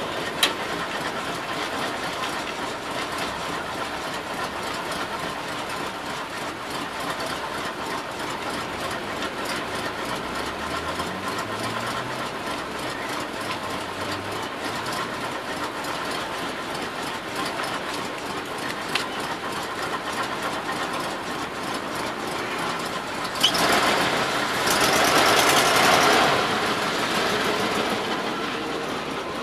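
Vehicle engine idling steadily close by. There is a sharp click about half a second in, and near the end the sound swells louder for about three seconds before settling back.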